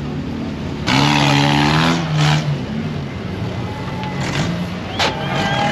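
Off-road race vehicle's engine revving hard for about a second and a half, then running on more steadily, with a sharp knock near the end.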